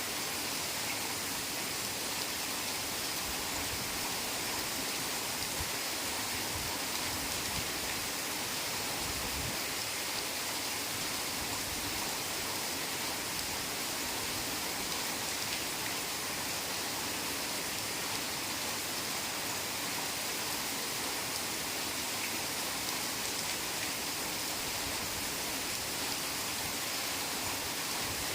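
Heavy rain falling steadily, an even hiss of countless drops with no breaks.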